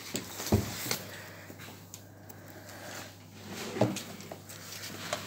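Faint rustling and handling of paper and plastic packaging, with two brief louder sounds.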